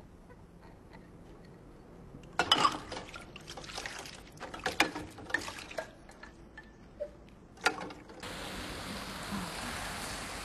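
Sharp clinks and knocks of a drinking glass being handled, loudest about two and a half seconds in and again near eight seconds. Then the steady rush of a fountain's water jets sets in.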